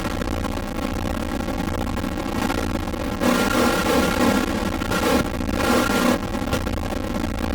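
Digital glitch sound effects for video transitions: a harsh buzzing, distorted noise with stuck electronic tones, swelling into louder bursts that start and stop abruptly, about three seconds in and again near five seconds.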